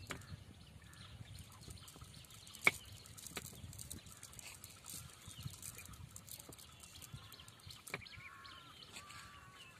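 Faint handling of a wet cast net in a wooden boat: scattered small clicks and knocks, with one sharp knock about a quarter of the way in. Near the end a few short animal calls sound in the background.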